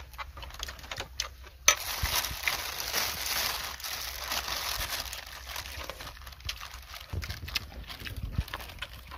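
Plastic bag crinkling and rustling as it is handled close by, starting suddenly about two seconds in and easing off near the end, with small clicks throughout.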